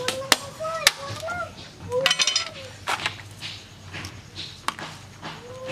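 Sharp knocks and cracks of mud crab shells being struck and cut on a boti blade and its wooden base, several single hits and a quick clattering cluster about two seconds in. Short pitched calls, like a voice or an animal, come between the hits.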